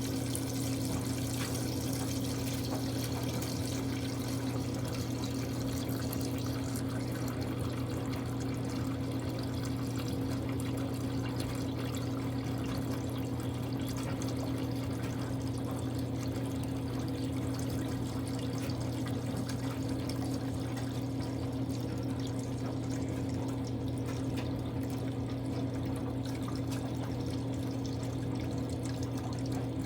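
Kuppet portable washing machine running with a load of water: a steady motor hum with water swishing and pouring.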